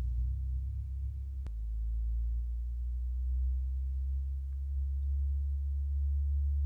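A steady low hum, with a single sharp click about one and a half seconds in.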